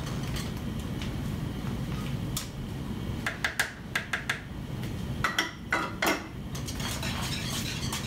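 A utensil stirring filling in a saucepan, clinking and knocking against the pan in a quick run of strikes through the middle. A steady low hum runs underneath.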